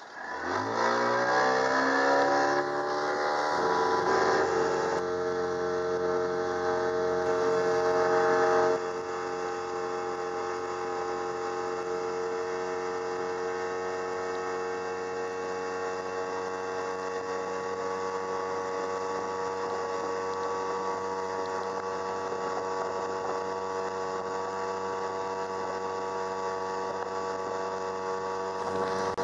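Single Chinese-made 40 hp outboard motor opened to full throttle. Its pitch climbs quickly over the first few seconds as the boat gets up to speed, then holds at a steady high-revving drone, a little quieter from about nine seconds in.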